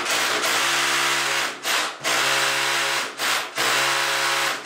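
Cordless drill boring into a masonry wall, in several runs with short pauses between them. It is drilling the hole deep enough to take a wall plug.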